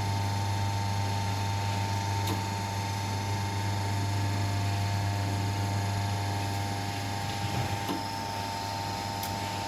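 Electric motor of a hydraulic rebar cutting and bending machine running with a steady hum, with a faint click about two seconds in.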